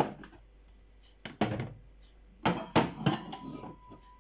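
Kitchen containers being handled: about five short knocks and clatters as things are set down and moved, spread through the few seconds.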